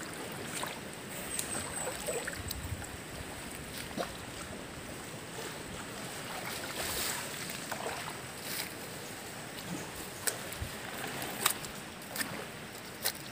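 River water moving and lapping, with scattered sharp clicks and knocks, several of them near the end.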